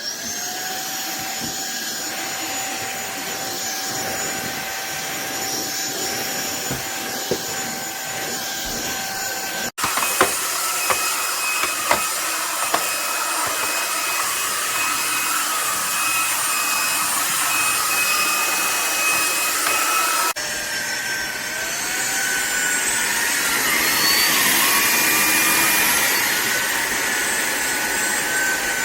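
Cordless stick vacuum cleaner running with a steady high motor whine. The sound cuts abruptly twice to a slightly different pitch, with a few sharp ticks about ten seconds in. Near the end the whine slides up and then dips back down.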